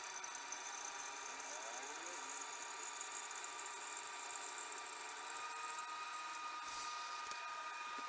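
Keurig coffee maker running, a steady high mechanical whine with a brief rising glide about two seconds in.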